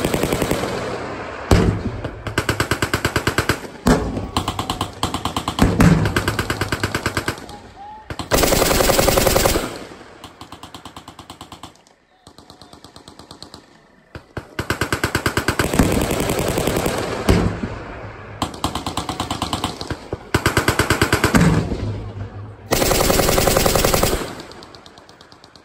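Machine-gun fire: long automatic bursts of rapid shots, one run after another, with a quieter lull about halfway through.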